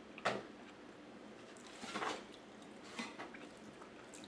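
Close-miked eating of vegetable pancake: soft wet chewing and mouth smacks, with a few short clicks of a metal spoon and fork against the plate.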